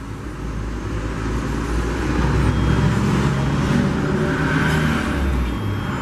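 Mundial centrifugal juicer's electric motor running steadily, then stopping near the end.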